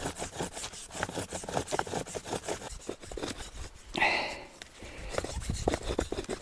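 Bow drill in use: a wooden spindle is spun back and forth by a bow, its ends turning in a bark socket and a wooden base. The result is a fast, rhythmic rubbing and scraping of wood on wood, the friction meant to heat the wood toward an ember.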